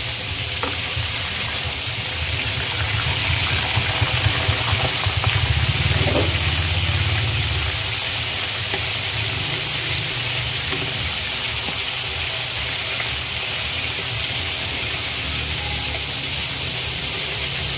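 Floured gizzards deep-frying in a wok of hot oil: a steady sizzling hiss. A low rumble swells under it from about three seconds in and fades by about eight seconds.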